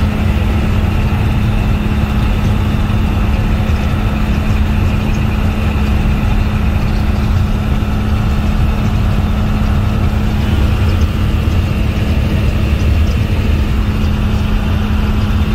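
Western Star semi truck's diesel engine running steadily at highway cruise, heard from inside the cab as a constant low rumble with an even hum, over tyre and road noise.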